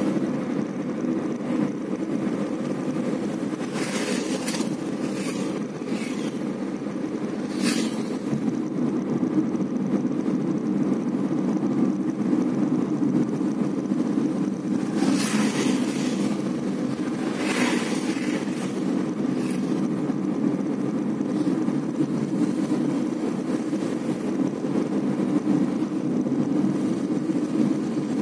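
Steady drone of engine and tyre noise heard from inside a vehicle driving on a wet highway. Short hissing sounds come a few times, about four to eight seconds in and again about fifteen to eighteen seconds in.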